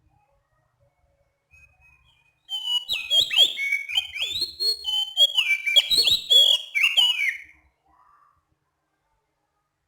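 Oriental magpie-robin (kacer) singing one run of clear, varied whistled phrases with quick sweeping notes. The run starts about two and a half seconds in and lasts about five seconds.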